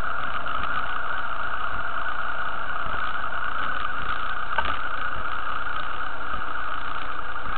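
Motorcycle engine idling steadily while the bike stands still.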